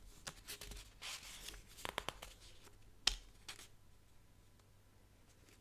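Faint handling noises: scattered scratches and clicks in the first few seconds, with one sharper knock about three seconds in, then quiet room tone.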